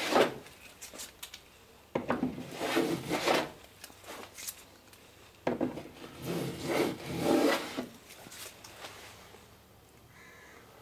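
Hand plane shaving the top edge of a wooden boat plank, cutting the bevel for the clinker lap. A short stroke ends right at the start, then two longer scraping strokes begin about two seconds and five and a half seconds in, and the planing stops a couple of seconds before the end.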